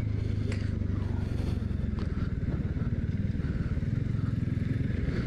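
Motorcycle engine running steadily with a fast, even pulsing rumble.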